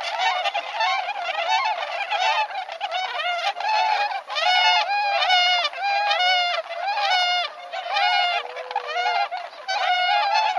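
A flock of whooper swans calling: many short calls overlap one another in a continuous stream, several each second.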